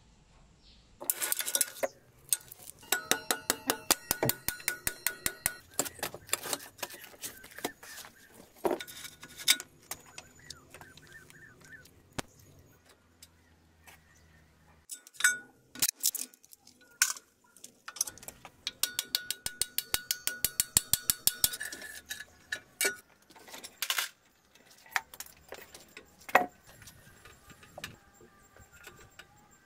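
Hand tools and bare metal motorcycle parts clinking and clicking during disassembly. There are two long runs of rapid metallic clicks, one starting about a second in and one after about eighteen seconds, with scattered single knocks and clinks between them.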